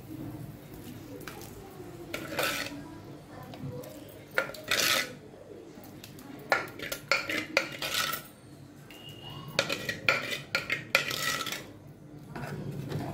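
A metal spoon or ladle clinking and scraping against cooking vessels in irregular clusters, as cooked dal is scooped into a clay pot of sambar and stirred in.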